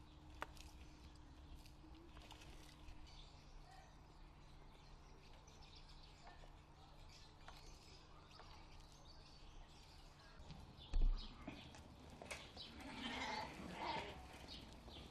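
Faint background with a few small clicks, then a sharp thump about eleven seconds in, followed by bleating from a flock of goats and sheep near the end.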